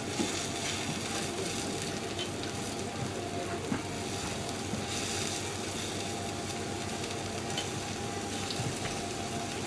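Cubes of Chateaubriand beef sizzling steadily on a hot teppanyaki steel griddle, with a few light clicks of a knife and carving fork against the plate.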